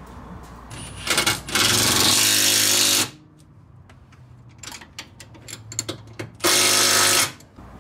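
Cordless power tool running in three bursts, a short one about a second in, a longer one of about a second and a half, and another near the end, as fasteners are run down under the car's front end. Light clicks of handling in between.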